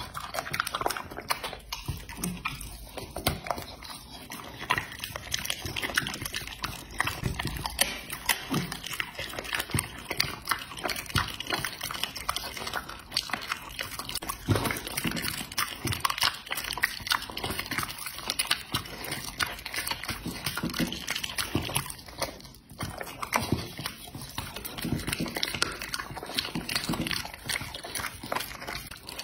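A bully-type dog chewing raw meat: continuous wet chewing and smacking with many small sharp clicks.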